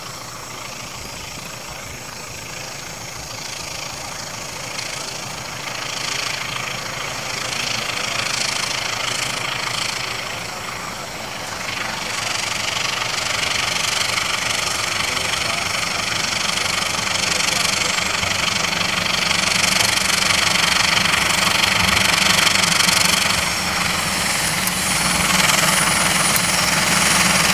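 Two diesel-electric locomotives in double traction hauling a parcel train, their engines running and growing steadily louder as the train approaches.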